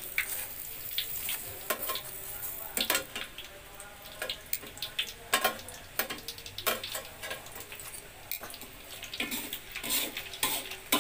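Burger bun halves sizzling on a hot grill pan, with repeated sharp clicks and scrapes of tongs against the pan as the bun is lifted and turned.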